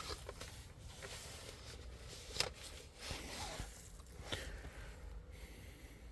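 Faint handling of a plastic car-radio display unit being opened by hand: scattered light clicks and rubbing, with one sharper click about two and a half seconds in.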